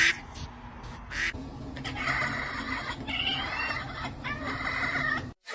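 A cat making a strange call: two short calls, then one long wavering call from about two seconds in that cuts off suddenly near the end.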